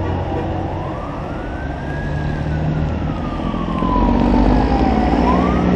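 An emergency vehicle's siren wailing in a slow cycle: it rises for about two seconds, falls for about three, and starts to rise again near the end. Under it are a steady engine rumble, which grows louder about four seconds in, and a constant wash of traffic noise.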